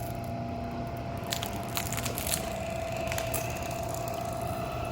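Wire stripping machine slitting the insulation off copper electrical wire: irregular crunching and crackling clicks over a steady whine and low hum.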